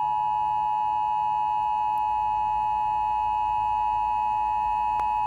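Emergency Alert System attention tone through a car's FM radio speaker: a loud, steady electronic tone held without a break. It announces an emergency alert, here a winter storm warning.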